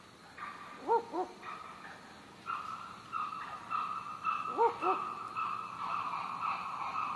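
Animal calls: pairs of short notes that rise and fall in pitch, the pair repeated about every three and a half seconds, over a steady high hum that grows louder a few seconds in.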